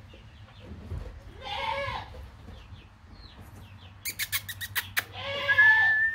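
Newborn goat kids bleating twice, with a quick run of sharp taps in between, like small hooves on the wooden block as the kids jostle. A thin, steady whistle-like tone starts near the end.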